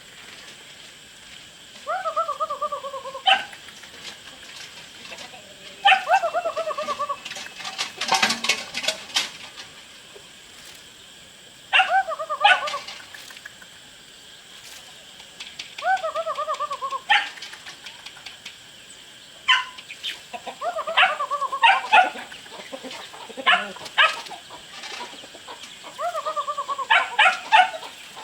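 A dog whining: a falling, whine-like call about a second long, repeated every few seconds, several of them ending in short high yelps. A quick run of sharp clicks comes about eight seconds in.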